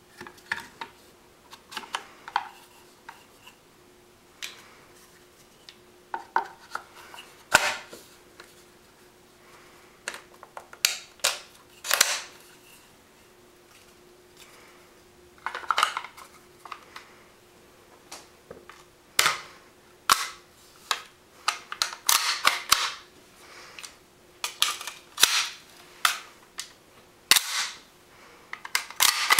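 Steel and polymer parts of a D54P-N, an MP5-type 9mm pistol, clicking and clacking as it is put together by hand, with the trigger group fitted to the receiver and a magazine seated. The sharp clicks come in irregular clusters, busiest in the second half.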